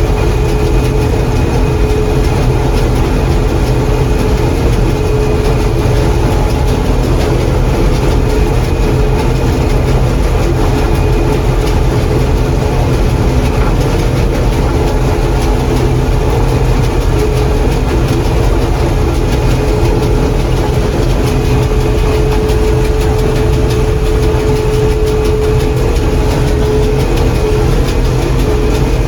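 John Deere 4400 combine running while harvesting corn, heard from inside the cab: a steady, heavy engine and machinery drone with a whine that comes and goes.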